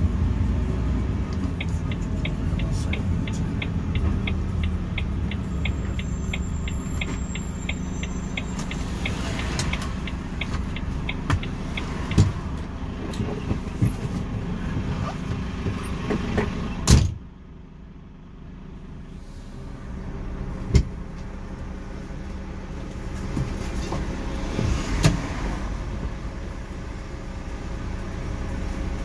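Volvo truck's diesel engine and road noise heard from inside the cab while driving. A light ticking runs at about three a second for the first several seconds. About 17 seconds in a sharp knock is followed by the engine sound dropping away for a few seconds before building again.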